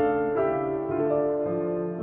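Background piano music: a slow melody with a new note or chord struck about every half second.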